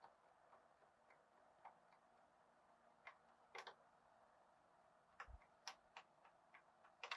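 Near silence broken by a handful of faint, irregular small clicks: a screwdriver loosening the screw of a laptop's bottom RAM cover.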